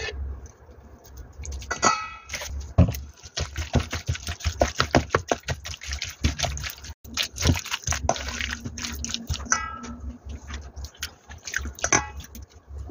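Sliced squid being tossed with thick red seasoning paste and minced garlic in a stainless steel bowl with a wooden spatula. It makes rapid wet squelching and scraping, busiest through the middle, with a few short squeaks.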